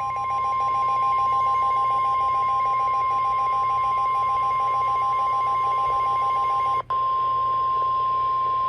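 NOAA Weather Radio 1050 Hz warning alarm tone: one loud, steady, high-pitched tone, broken by a brief dropout about seven seconds in. It is the signal that a warning broadcast follows, here a severe thunderstorm warning. A fainter, rapidly pulsing beep sounds beneath it.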